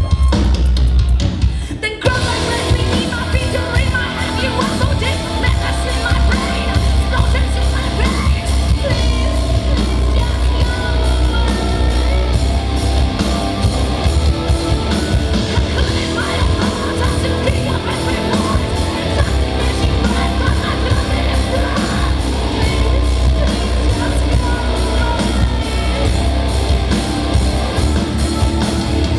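Metal band playing live with vocals, loud through the hall's PA and heard from the crowd. It opens on a deep bass-heavy passage, and the full band comes in about two seconds in.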